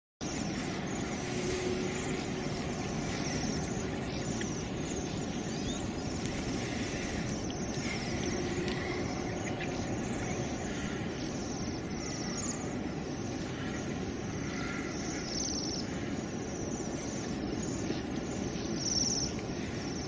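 Steady outdoor ambience with a low rumble like distant traffic, and faint, brief high chirps of small birds here and there.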